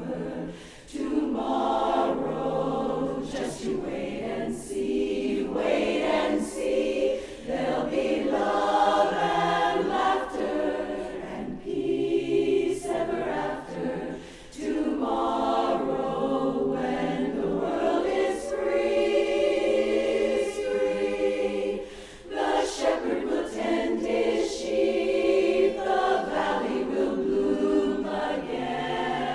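A chorus singing a cappella in harmony, many voices together, in long phrases broken by brief pauses for breath.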